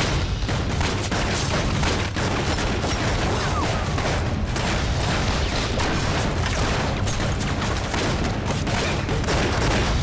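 Handgun gunfire in a film shootout: a dense run of pistol shots in quick succession from more than one gun.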